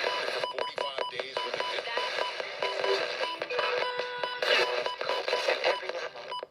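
Loud, dense hiss and crackle with a short electronic beep repeating about three times a second, cutting off suddenly at the end.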